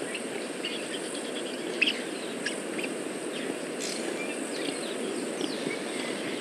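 Outdoor wildlife ambience: many short, scattered bird chirps and calls over a steady low rushing noise, with a thin, steady, high insect hum.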